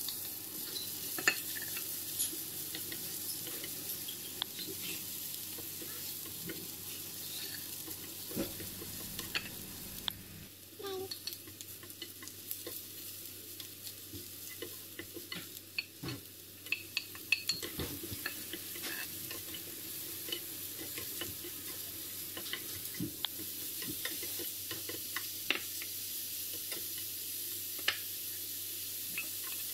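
Chopped onion frying in oil in a nonstick frying pan, with a steady sizzle, while a spatula stirs it and scrapes and taps the pan now and then. Near the end, sliced mushrooms are frying and being stirred the same way.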